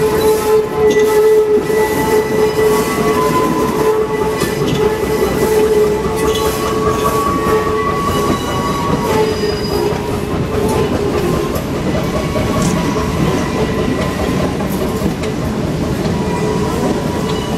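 A moving train heard on board: steady running rumble of the cars, with the wheels squealing against the rails in several held tones that fade in and out.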